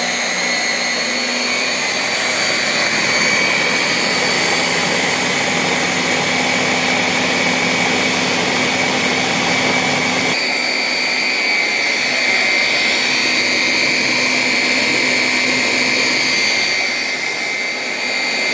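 Hand blender motor running on its chopper bowl attachment, puréeing cooked chickpeas, tahini, lemon juice and water into hummus: a loud, steady high whirr with a slight change in tone about ten seconds in.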